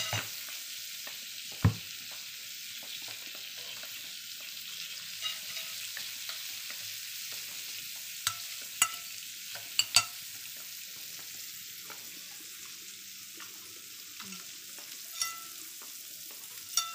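Food sizzling on a tabletop grill plate: a steady frying hiss, broken by a handful of sharp clicks of utensils against the plate, the loudest about two seconds in and a few more around the middle.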